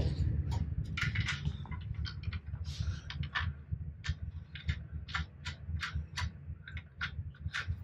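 Irregular light clicks and ticks, a few a second, as the oil drain plug is turned in by hand on the oil pan, over a low steady hum.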